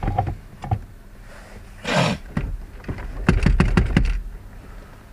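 Clicks and rattles of plastic parts being handled inside a car's dashboard, with a scrape about two seconds in and then a quick run of clattering clicks as a small part drops down inside the dash.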